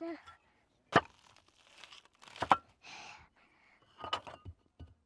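Loose fired-clay bricks being lifted and set down on other bricks: two sharp clacks about one and two and a half seconds in, a short scrape, then a few lighter knocks near the end.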